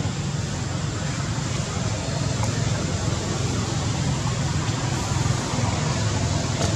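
Steady outdoor background noise: a low rumble with a hiss over it, even throughout, with no distinct calls or knocks standing out.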